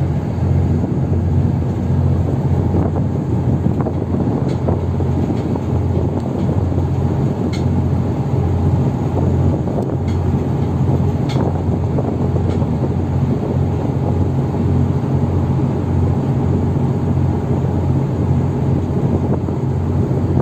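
Diesel engines of a landing-craft cargo vessel running steadily under way, a loud, even low drone, with a few faint clicks over it.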